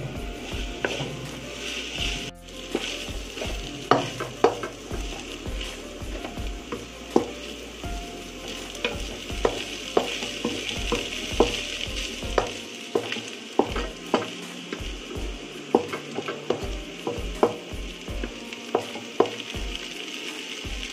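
Kimchi fried rice with ham sizzling steadily in a hot nonstick pan as a wooden spatula stirs and scrapes it, with frequent sharp knocks of the spatula against the pan. There is a brief break about two seconds in.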